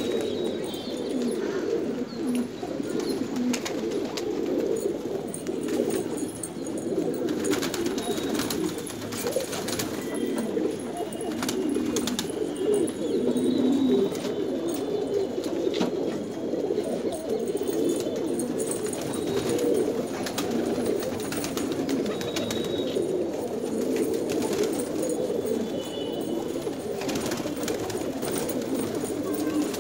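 A loft full of domestic pigeons cooing continuously, many birds overlapping into a steady low warble. Scattered sharp clicks and a few faint high chirps sound over it.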